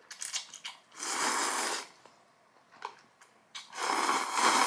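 A person slurping instant ramen noodles, two long slurps about two and a half seconds apart, with a few small mouth and chopstick clicks before the first.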